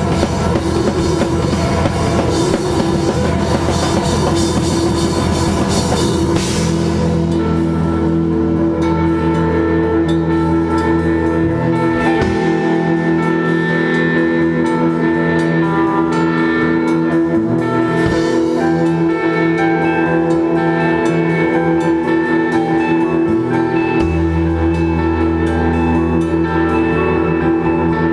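Instrumental rock band playing live on electric guitars, bass guitar and drum kit. About six seconds in, the heavy drumming and cymbals drop out and held guitar and bass chords carry on, the low notes shifting every few seconds.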